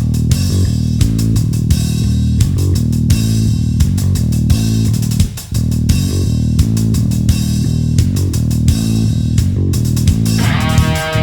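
Background rock music: bass guitar and guitar over a steady drum beat, with a short break about halfway through and a new sustained guitar tone coming in near the end.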